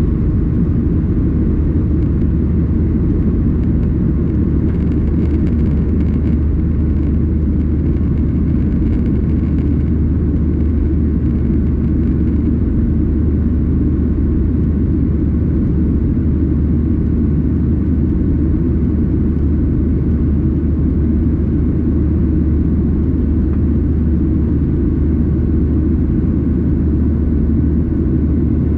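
Steady low rumble of a Boeing 737-800 airliner heard inside the cabin: engine and airflow noise with a constant deep hum, holding one level throughout.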